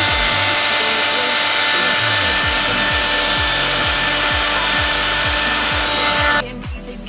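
Hair dryer blowing onto vinyl wrap film to soften and stretch it: a loud, steady rushing hiss with a high whine, cutting off abruptly about six seconds in. Background music with a regular beat plays underneath.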